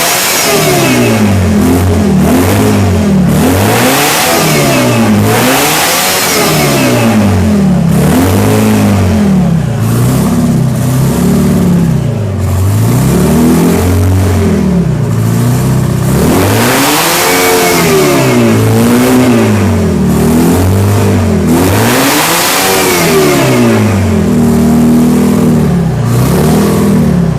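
Engine of a 1950 Oliver pulling tractor with twin blowers, revved up and let fall back over and over, about one rise and fall every two seconds.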